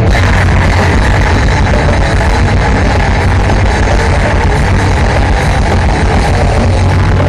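Grindcore band playing a song live through a large outdoor PA: a loud, unbroken wall of heavy metal guitar and drums.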